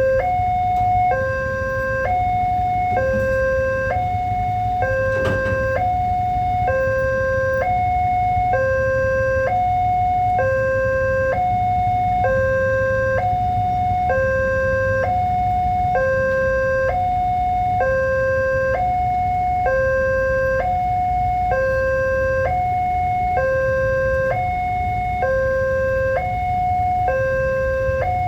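Railway level-crossing warning alarm sounding continuously, an electronic two-tone signal that switches between a low and a higher pitch about once a second, warning that a train is approaching. A low steady rumble runs underneath, with a single sharp knock about five seconds in.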